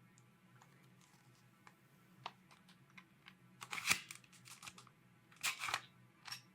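Handling noises: scattered light clicks and taps, with two louder rustling bursts about four and five and a half seconds in, over a faint low hum.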